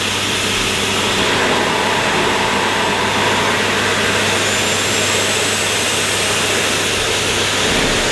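Sebo Airbelt E1 Pet cylinder vacuum cleaner's 1200 W suction motor running steadily: a loud, even rush of air with a low hum beneath it.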